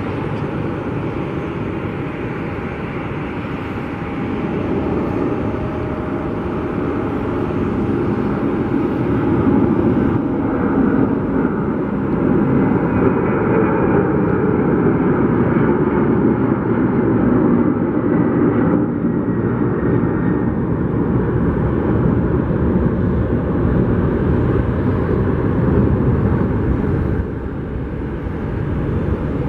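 FedEx Airbus A300-600 freighter taking off: the steady roar of its twin jet engines at takeoff thrust, building over the first several seconds as it rolls, lifts off and climbs overhead, then falling off near the end as it flies away.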